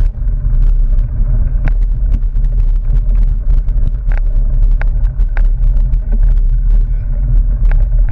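Mountain bike ridden over a dirt trail, heard through a bike-mounted camera: a heavy, steady wind rumble on the microphone, with frequent sharp clicks and rattles from the bike jolting over the rough ground.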